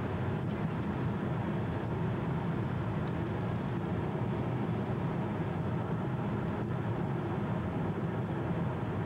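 Steady road and engine noise inside a car's cabin as it drives along a highway, an even low rumble that does not change.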